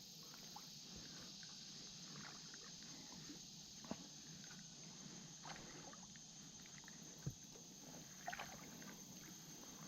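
Near silence: faint water sloshing around legs wading in a shallow creek, with a couple of small clicks.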